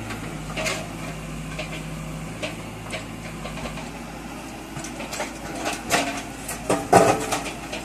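JCB backhoe loader's diesel engine running steadily, then its bucket striking and breaking up a concrete slab, with a run of sharp knocks and clanks in the second half, the loudest about seven seconds in.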